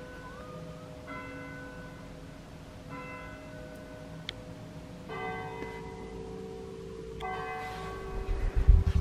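Church bells ringing, a new strike about every two seconds, each note ringing on for a long time. In the last second a loud low rumble of the camera being handled drowns them.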